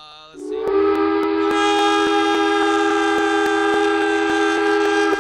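Train horn blown in one long, steady multi-tone chord, starting about half a second in. It is the celebration signal that a participant has raised $100.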